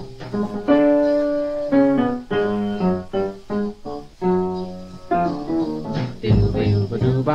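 Background music: a piano-led tune with a bass line.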